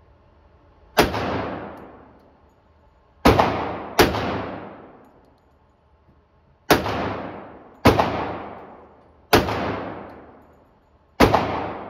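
A .45 1911 pistol fired seven times at uneven intervals. Each shot has a long echoing tail off the walls of an indoor range.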